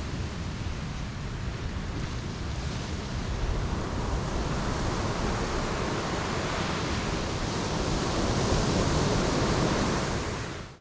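Ocean surf washing onto a beach: a steady rush of waves that swells slightly near the end, then fades out quickly.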